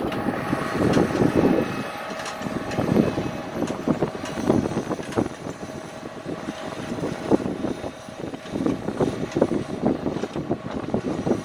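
Tractor engine running steadily while pulling a disc ridging implement through dry, stony soil, with a dense, irregular crackle and knocking of clods and the implement working the ground.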